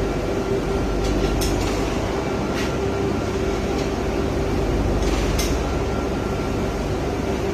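Steady industrial machinery noise with a constant hum, and a few brief clicks about one, two and a half, and five seconds in.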